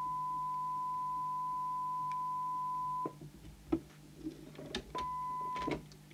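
A steady test tone from the Fidelity 2001 CB radio's speaker, the signal generator's modulation received through the set, cuts off about three seconds in as the squelch closes. After a few clicks it comes back briefly near the end and cuts off again, as the squelch preset is set to its threshold.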